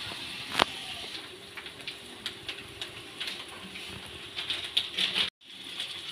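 Mango-batter fritters sizzling and crackling as they deep-fry in hot oil in a kadai: a steady hiss full of small pops. There is a sharp click about half a second in, and the sound drops out for a moment near the end.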